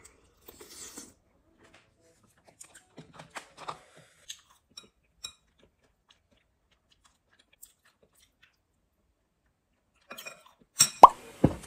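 Soft eating sounds: chewing, with a metal spoon and chopsticks clicking against a ceramic bowl, then a quiet stretch. Near the end comes a short burst of much louder knocks and clatter.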